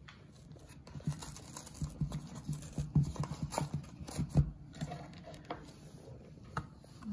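A small gable-top paperboard carton of frozen strawberries being pulled open by hand: an irregular run of short knocks and crackles from the stiff cardboard, thickest between about one and five seconds in.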